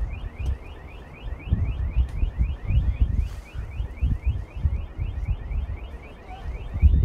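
A high electronic chirp rising in pitch and repeating fast and evenly, about four times a second, like an alarm siren. Under it, wind buffets the microphone in loud low gusts.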